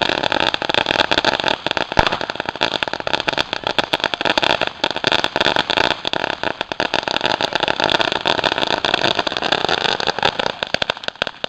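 Firework going off with a steady hiss and a dense, rapid crackle of many small sharp pops, dying down near the end.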